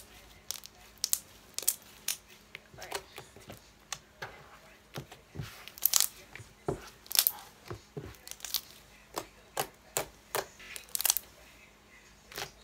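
Lotion slime being kneaded, folded and stretched by hand, giving irregular sharp clicks and pops, sometimes several a second.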